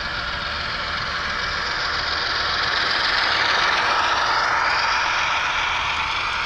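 HO scale model train running past on the layout, its wheels and running gear making a steady mechanical rush that grows louder to a peak around the middle and then eases off.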